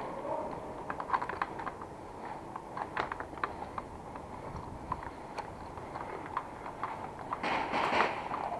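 Footsteps on a gritty tiled floor, with scattered light clicks and taps of carried gear. A louder, brief rustling scrape comes near the end.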